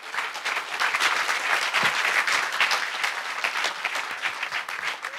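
Audience applauding: many hands clapping in a dense patter that builds over the first second, holds steady, and tapers off near the end.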